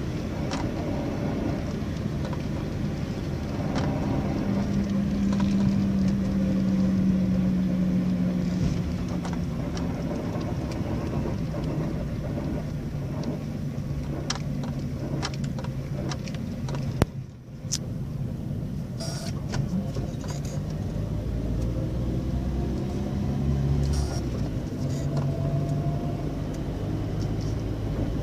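Nissan Sentra on the move: steady engine and road rumble. A humming tone comes in about four seconds in and fades by about eight, and a single sharp click comes about seventeen seconds in, followed by a brief drop in level.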